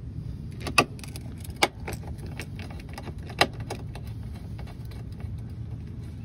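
Metal clicks and clinks of Phillips head bolts being handled and set into the holes of a washing machine's shift actuator mount: three sharp clinks in the first half, lighter ticks between them, over a steady low hum.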